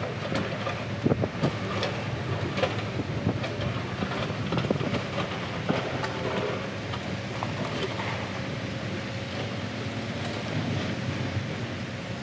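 Scattered metal knocks and clicks from radiator and oil-cooler parts being handled, over a steady low rumble.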